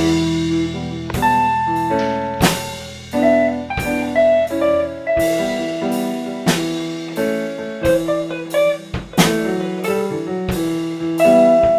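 Instrumental background music with drums: held melodic notes over drum hits that come about once a second.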